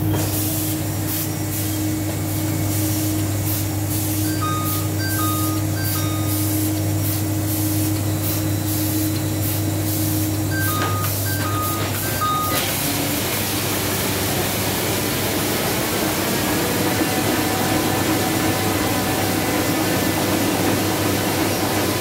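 Ryobi four-colour offset printing press running: a steady low hum with regular clicking about twice a second, broken twice by three short two-note beeps. About twelve seconds in the clicking gives way to a louder, denser, hissing mechanical noise as the press runs on.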